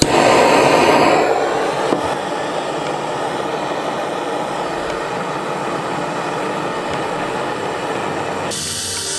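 Handheld butane blow torch burning with a steady hissing roar, loudest in the first second after it lights, then settling to an even hiss.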